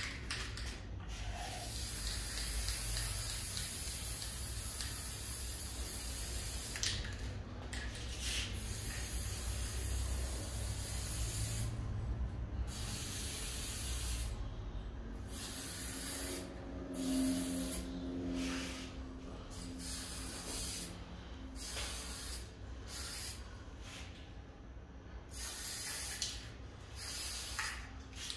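Aerosol spray paint can hissing in long bursts, then in shorter bursts with brief pauses in the second half, over a low steady rumble.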